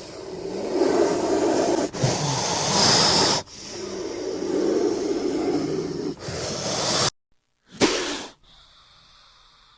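Cobra hissing: long breathy hisses follow one another with only brief breaks over about seven seconds, then after a short silence a single short hiss.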